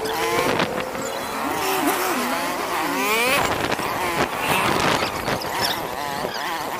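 Vehicle engines revving, with squealing tones that rise and fall in pitch.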